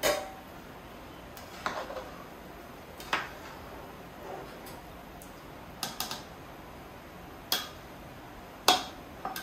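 Kitchen utensils clinking against a cooking pot as the boiling rice is checked: a handful of sharp, separate clinks and taps, the loudest near the end.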